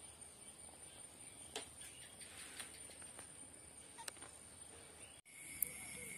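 Faint outdoor background with a steady high-pitched whine and a few soft clicks. About five seconds in, the sound cuts out for an instant and comes back a little louder, with a second, lower steady tone and one sharp click.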